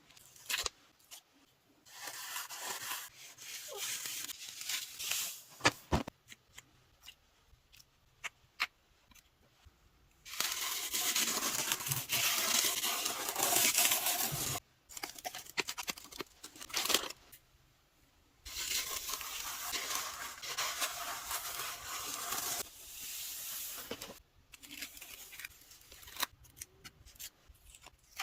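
Coloured sand being poured and sprinkled onto a drawing surface, several long hissing streams of a few seconds each with quieter gaps of light ticks and taps in between.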